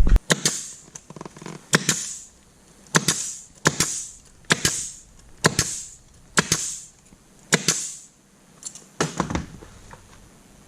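Pneumatic upholstery staple gun firing about ten times, roughly once a second, each shot a sharp snap followed by a short hiss of air, driving staples to fasten a vinyl cover pulled tight over a golf-cart seat.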